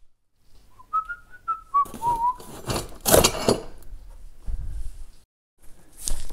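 A person whistling a few short notes that step and slide in pitch. About three seconds in comes a loud burst of rustling and handling noise, with more shuffling noise near the end.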